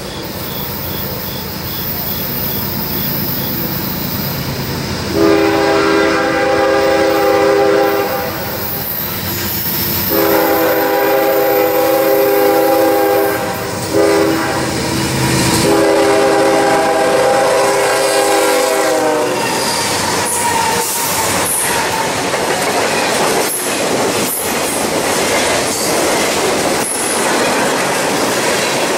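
Norfolk Southern freight train approaching, its diesel locomotives' rumble growing, and the horn sounding the grade-crossing signal: two long blasts, a short one, then a long one. The locomotives then pass close by and the freight cars follow, their wheels clicking rhythmically over the rail joints.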